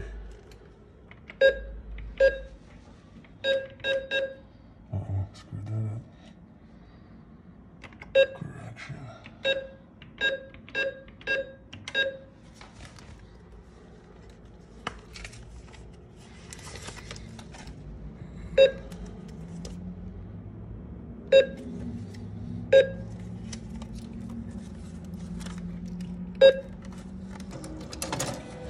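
Diebold ATM beeping at each key or screen press: about sixteen short beeps, some in quick runs of three or four and others several seconds apart. A low steady hum comes up in the second half.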